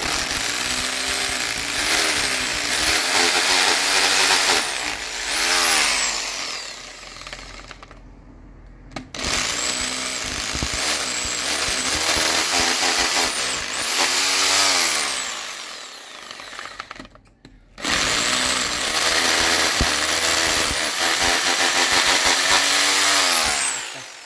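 Hammer drill boring into a masonry wall, three separate runs of several seconds each with short pauses between. The motor's pitch rises as each run starts and slides down as it winds off.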